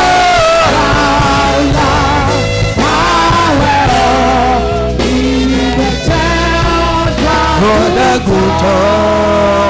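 Gospel worship song: voices singing over a band accompaniment with a steady bass.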